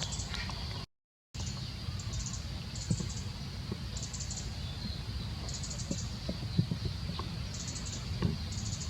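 Forest ambience: a steady high insect drone with short bursts of high chirping repeating about once a second, over a low rumble. The sound cuts out completely for about half a second, about a second in.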